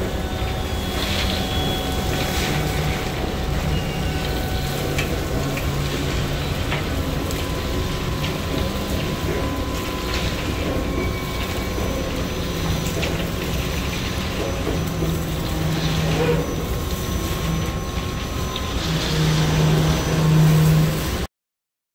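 Coal rail loadout filling a hopper car: a steady rumble and rush of coal pouring from the overhead chute, with loadout machinery humming. The hum grows louder near the end, and the sound stops abruptly.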